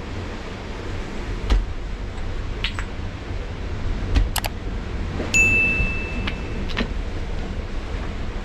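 Light clicks and knocks, with a small metal object struck once about five seconds in, ringing clearly for over a second. A steady low rumble runs underneath.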